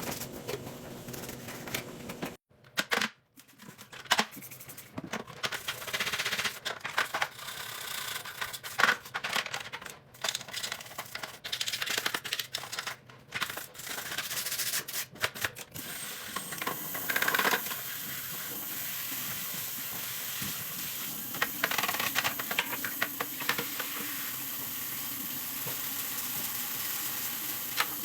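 Irregular clicks, knocks and scrubbing as a washing machine is cleaned by hand, then a steady hiss sets in a little past halfway and holds.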